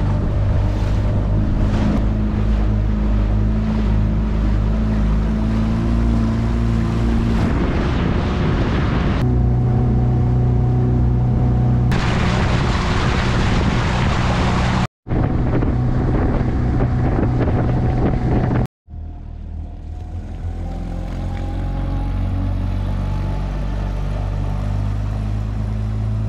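Boat engine running steadily under way, with wind on the microphone, heard in several short clips cut together. About 19 seconds in, a different engine note takes over and slowly rises in pitch.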